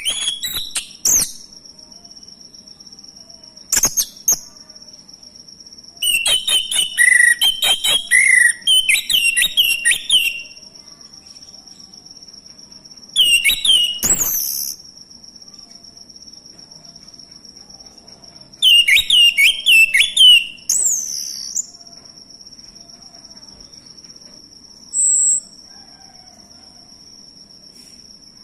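Male orange-headed thrush singing: about five bouts of quick, varied whistled phrases, separated by pauses of a few seconds, over a steady high-pitched insect drone.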